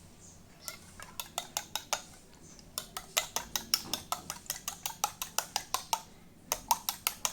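Rapid light metal-on-metal tapping on a sewing machine motor's parts, about four or five sharp taps a second, in three runs broken by short pauses.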